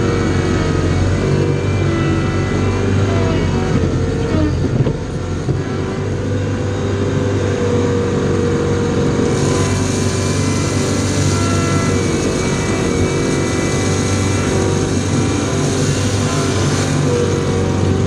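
ASV tracked skid steer heard from inside its cab: the engine runs steadily as the machine drives and lifts its bucket. From about halfway through until near the end, a hiss of loose gravel spilling from the raised bucket runs over the engine.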